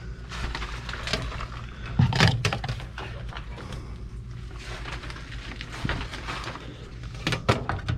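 Handling noise of a power cord being pulled through a grommeted hole: scattered rustles and short clicks, louder about two seconds in and again near the end, over a steady low hum.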